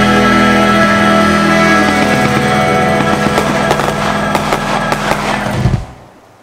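Loud recorded music with fireworks popping and crackling over it. Both cut off suddenly near the end.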